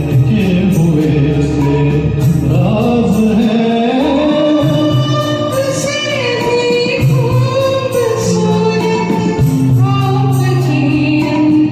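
Hindi film-song duet performance: a voice singing a sliding, wordless melody over instrumental accompaniment with a steady percussion beat.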